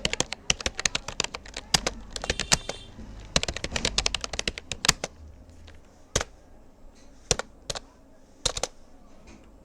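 Typing on a Rapoo computer keyboard: a fast run of key clicks for about five seconds, then only a few scattered keystrokes.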